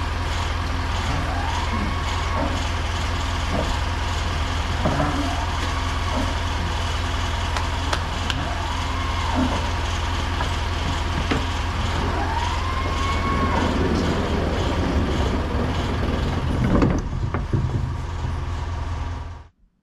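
An engine idling steadily, with cattle mooing several times over it, each call rising and falling in pitch. The sound cuts off abruptly just before the end.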